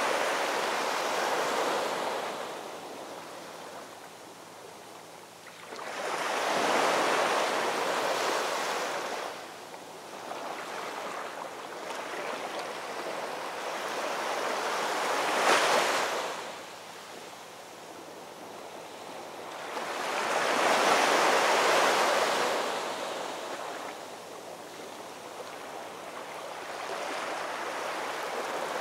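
Ocean surf: waves breaking and washing in, swelling and fading about every six to seven seconds, with one sharper crash about halfway through.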